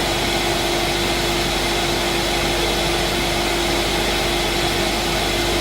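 Refrigerator's internal buzz: a steady, unchanging hum with one held tone over an even hiss.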